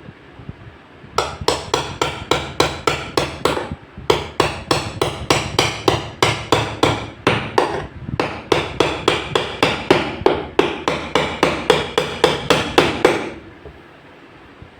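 Rapid, evenly paced hammer blows, about five a second, each with a short ring. They pause briefly near four seconds in and stop shortly before the end.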